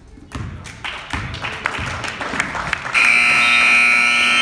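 Basketball bouncing on a gym floor with crowd noise building, then about three seconds in a scoreboard buzzer sounds, a loud steady blare and the loudest thing here, marking the end of play.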